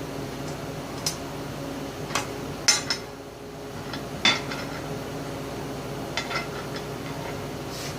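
Sharp metallic clinks, about six scattered strikes, as a screwdriver and small steel parts are handled against the belt guard, over a steady low hum.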